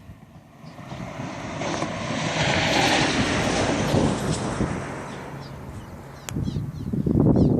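An aircraft passing overhead: engine noise that swells, peaks about three seconds in and fades away, with faint bird chirps. A loud low rumble comes near the end.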